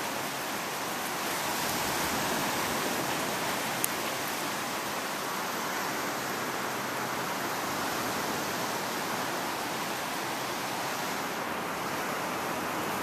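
Steady, even rushing noise with no pitch, with one sharp click about four seconds in.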